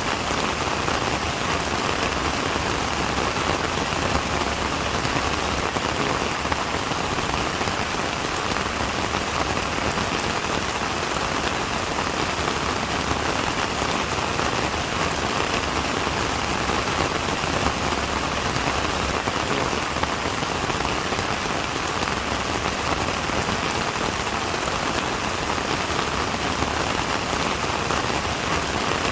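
Steady rain falling on a surface, an even hiss with no change in strength.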